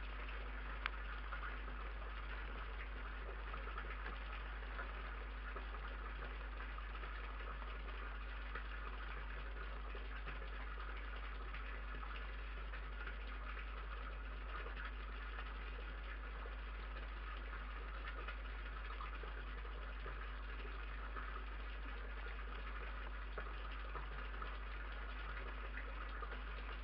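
Steady hiss and low electrical hum from a security camera's microphone, unchanging throughout, with a few faint clicks.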